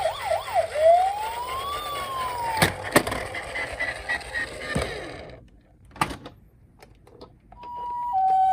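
Toy emergency-vehicle minicar's electronic siren: a fast up-and-down wail, then one slow rise and fall that is cut off by two sharp clicks. After a quiet stretch, a two-tone hi-lo siren starts near the end.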